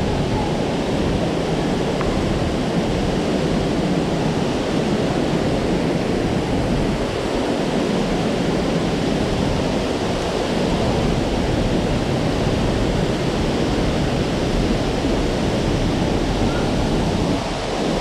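Steady rush of a waterfall plunging into a gorge stream, with the water flowing below it.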